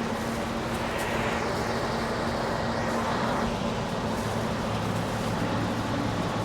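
A combine harvester's diesel engine running steadily, a constant low hum with a wash of mechanical noise.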